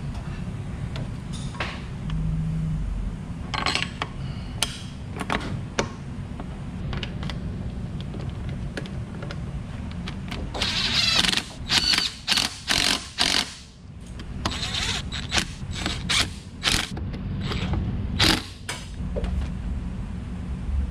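Metal clinks and knocks as a motorcycle front wheel and axle are fitted into the fork, then a cordless power driver running in several short bursts to drive the front axle home, over a steady low hum.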